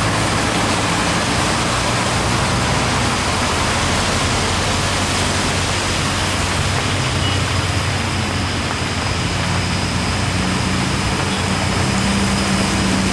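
Heavy truck's diesel engine pulling up a steep grade under a steady rush of noise. The engine note grows stronger in the last few seconds as the truck draws nearer.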